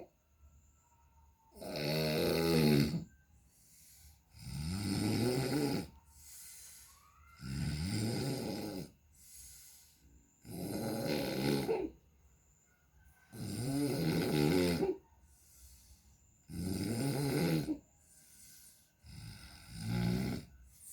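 A person snoring loudly in a steady rhythm: seven long snores, one about every three seconds, with softer breaths between them. The snores are likened to a racing exhaust.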